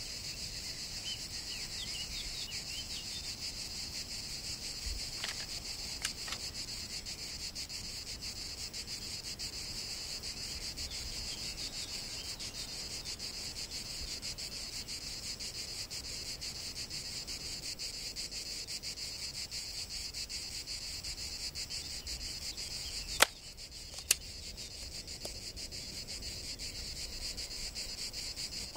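Crickets chirping steadily, with a few faint bird calls in the first seconds. Near the end, two sharp clicks about a second apart cut through.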